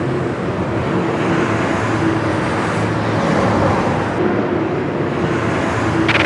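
A vehicle engine running loudly and steadily.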